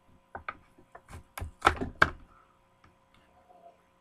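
A Hot Wheels blister pack being handled and opened: a quick run of sharp plastic clicks and knocks, loudest about two seconds in, then a few faint ones.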